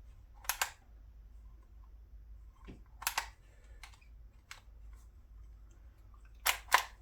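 DYMO Organizer Express manual embossing label maker clicking as its handle is squeezed and released. The sharp clicks mostly come in pairs about a quarter second apart: one pair about half a second in, one around three seconds, and the loudest pair near the end.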